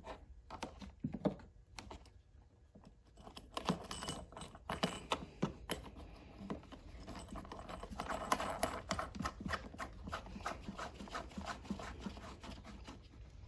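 Irregular small clicks and taps as a brass bulkhead fitting, lock washer and nut are handled and fitted by hand into the plastic cover of a Predator 2000 inverter generator. The clicking is sparse at first and comes thick and fast from a few seconds in.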